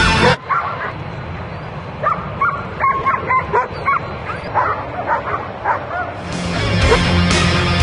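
German shepherd barking repeatedly, short sharp barks in quick runs. Rock music breaks off at the start and comes back about six seconds in.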